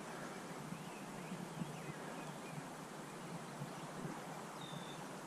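Faint outdoor ambience: a steady hiss with a few faint bird chirps and one short, high whistled note about four and a half seconds in.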